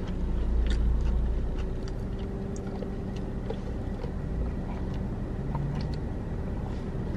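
Steady low hum of a car running while parked, heard from inside the cabin, with faint small clicks and sips as a soft drink is drawn through a straw.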